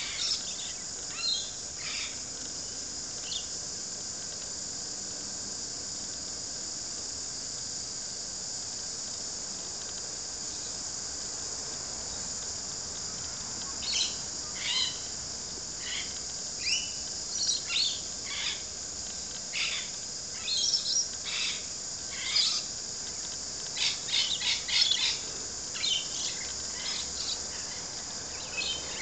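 A steady high-pitched insect drone, with short bird chirps: a few near the start, then many in quick succession from about halfway through.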